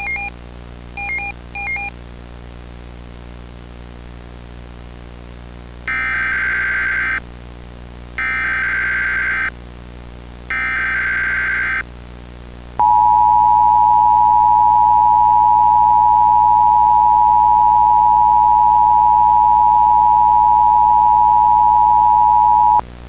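Emergency Alert System tones. Three short buzzy bursts of the SAME digital data header, about a second apart, are followed by the two-tone EAS attention signal, held steady for about ten seconds and then cut off sharply. A few short beeps come in the first two seconds, and a faint low drone runs underneath.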